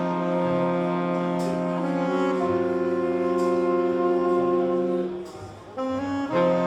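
Jazz tentet's horn section, saxophones and brass, playing long sustained chords in a slow ballad. The chord shifts about two seconds in, the band drops away briefly near the end, then comes back in on a new chord.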